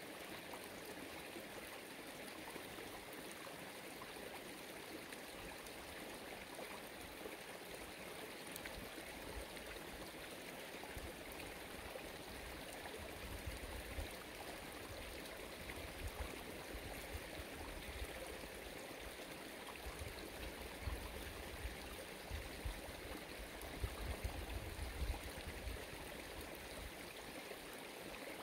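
A stream running steadily, with some low rumbles and a few brief knocks in the second half.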